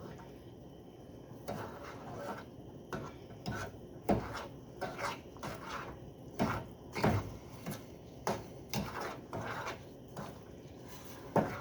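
A spoon stirring a pot of sugar, butter and evaporated milk, scraping and knocking against the pan at irregular intervals.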